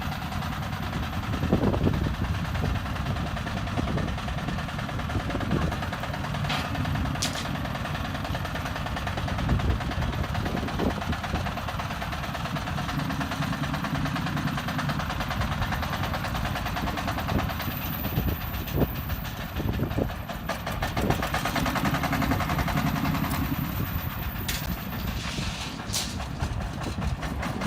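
Self-loading concrete mixer's engine running steadily as the machine works, with a few sharp knocks here and there.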